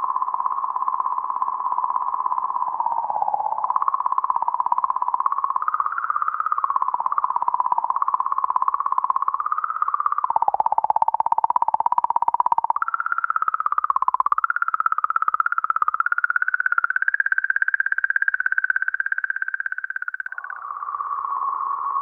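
Sonified recording of comet 67P/Churyumov-Gerasimenko's 'song': oscillations of 40 to 50 millihertz in the magnetic field around the comet, picked up by Rosetta's RPC magnetometer and raised ten thousand times into hearing range. It is a wavering tone that shifts in pitch and rhythm. About ten seconds in it turns into a fast fluttering rattle, about thirteen seconds in it jumps higher, and near the end it drops back.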